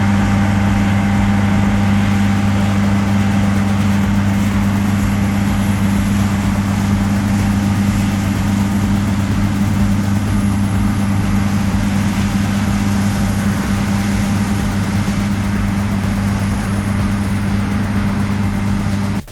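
Large diesel farm machinery running steadily: a constant low engine hum with an even mechanical rush over it.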